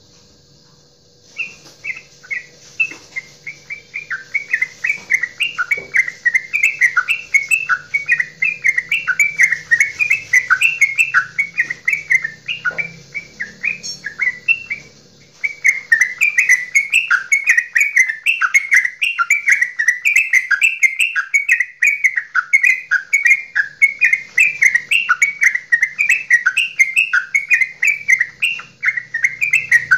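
Yellow-vented bulbul (trucukan) singing its long goklikan song: a fast, unbroken run of bubbling chirps, several notes a second. It starts about a second and a half in, breaks off for about a second halfway through, then goes on without a pause.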